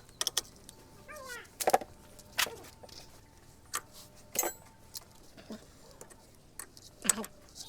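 Scattered sharp metallic clicks and clinks, the sound of tools and small engine parts being handled and set down, with a few short chirp-like sounds between them.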